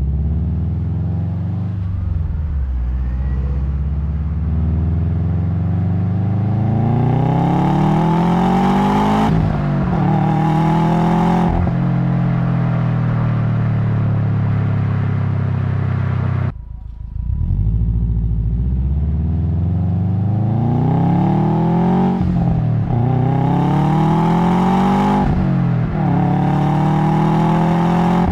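2008 Subaru Impreza WRX STi's turbocharged flat-four engine, breathing through an SPT cat-back exhaust, accelerating through the gears in two runs. The pitch climbs steadily and drops sharply at each upshift, with a steady cruise between the runs.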